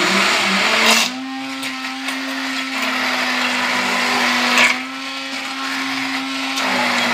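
Hand-held immersion blender running in a stainless steel pot, puréeing chunks of cooked beetroot and vegetables into a smooth cream. The motor hums steadily under the churning of the blade through the liquid, with short louder surges about a second in and again past halfway.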